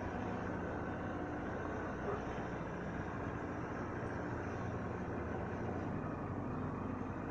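Motorcycle engines idling together, a steady low hum with no revving.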